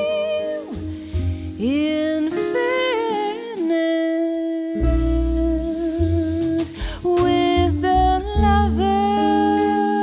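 Live jazz ballad: a female voice sings long held notes that scoop up into pitch, over plucked double bass, guitar and drum kit with cymbals.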